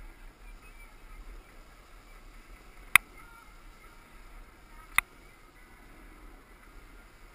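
Snowboard sliding over groomed corduroy snow, a faint steady hiss heard from a helmet-mounted camera, with two sharp clicks two seconds apart, the first about three seconds in.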